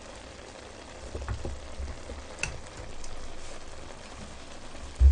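Ramen cooking water bubbling in a pot while it is ladled out with a metal ladle, with a few light clinks of the ladle against the pot and a steel bowl. A dull thump comes right at the end.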